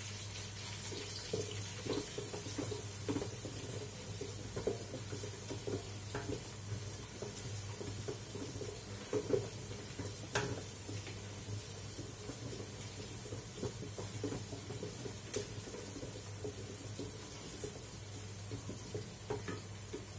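Garlic, shallots and curry spices sizzling in oil in a large pot, stirred with a wooden spatula: irregular soft crackles and scrapes with an occasional sharper click, over a steady low hum.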